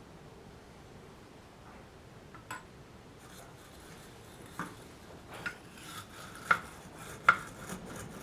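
A few light metallic clinks and taps, spaced about a second apart and growing more frequent in the second half, as the soldering iron is handled against its metal stand and tip cleaner.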